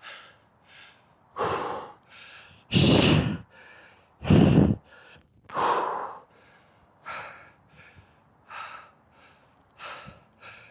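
A man breathing hard and gasping after a set of walking lunges: heavy, loud exhalations about once a second, strongest a few seconds in and easing and growing fainter toward the end as he recovers.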